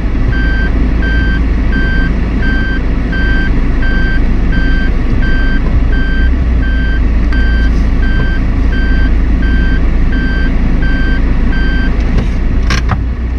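A car's reverse-gear warning beeper sounding about three times a second while the car backs up, over a steady low rumble of the moving car. The beeping stops shortly before the end, as the car comes out of reverse, and a single click follows.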